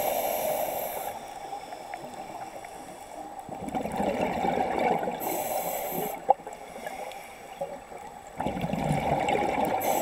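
Scuba diver breathing underwater through a regulator. There are two hissing inhales, one at the start and one about halfway through. Each is followed by a rush of bubbling from an exhale, about three and a half seconds in and again near the end, with a single sharp click a little after the middle.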